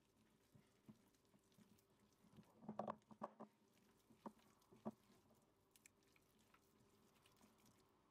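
Near silence, broken by a few faint squishy pats of hands working soft, wet dough in a glass mixing bowl: a small cluster about three seconds in, then two single pats.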